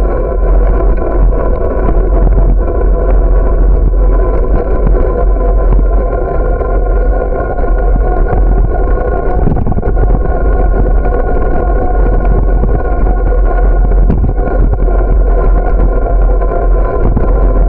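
A bicycle riding along a paved path: wind buffeting the microphone and tyre-on-asphalt rumble, loud and steady, with a constant hum running underneath.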